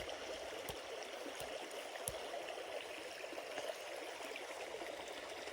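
Creek water running steadily, with a couple of faint clicks.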